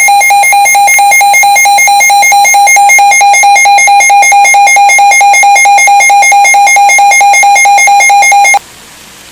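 Emergency Alert System attention signal: a loud, steady electronic alarm tone with a rapid flutter, cutting off abruptly near the end. A faint hiss remains after it.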